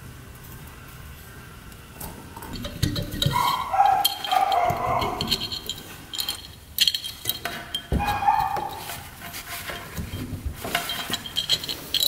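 Small-engine parts clinking and scraping as a finned cylinder is slid down over the crankcase studs and its cam chain is pulled up through it: irregular metal clinks and chain rattles with a few squeaky scrapes, starting about two seconds in.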